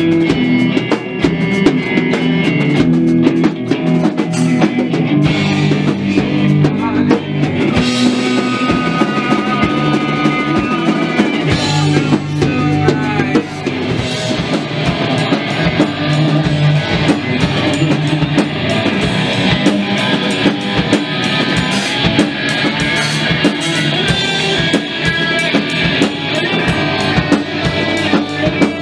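Rock band playing live in a rehearsal room: drum kit, electric bass and an electric guitar, a Fender Telecaster, playing together without a break.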